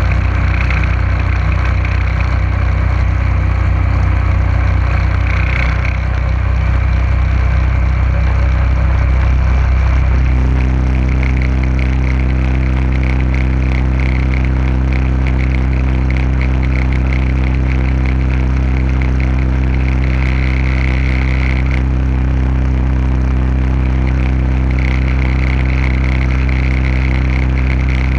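A small boat's motor runs steadily under way, with water rushing in the wake. About ten seconds in, the engine note shifts and settles into an even, steady drone.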